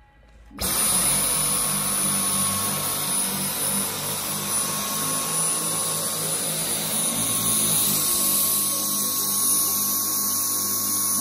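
Dyson cordless stick vacuum switched on about half a second in, its motor running steadily with a rush of air and a high steady whine.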